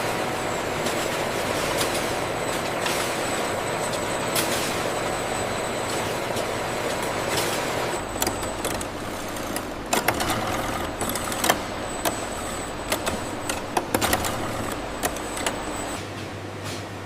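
Factory machinery running steadily with a thin high whine, joined about halfway through by a run of sharp clicks and knocks.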